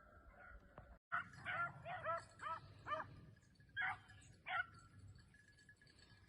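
Beagles giving tongue on a rabbit's trail: a quick run of about eight short, high-pitched yelping barks over three or four seconds, after a brief cut-out in the sound about a second in.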